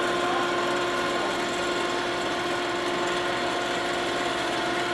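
Motor drive of a model railroad dropping turntable running steadily, a level mechanical hum with a steady whine, as the hinged turntable section swings on its pivot.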